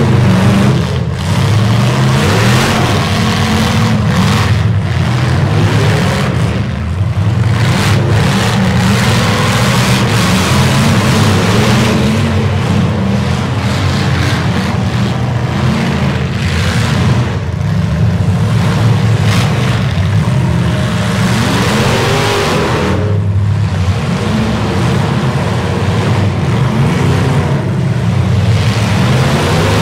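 Engines of several demolition-derby trucks running hard and revving, rising and falling in pitch without a break.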